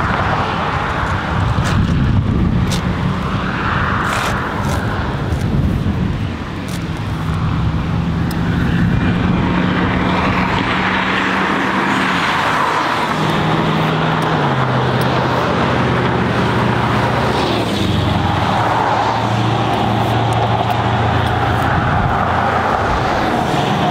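A motor vehicle's engine hum with road and wind noise while driving. The engine note steps lower a few times in the second half.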